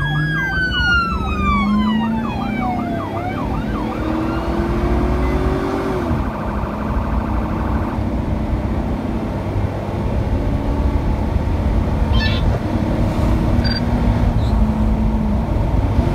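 Police sirens, a fast yelp and a slower rising-and-falling wail sounding together, stop about three to four seconds in. After that only the steady rumble of the car and its tyres on the wet highway remains, heard from inside the cabin.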